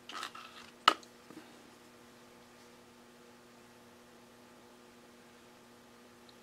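A knife blade working wall grout from a cup into the end of a metal vial tube: a few brief scrapes and one sharp click about a second in. After that only a steady electrical mains hum.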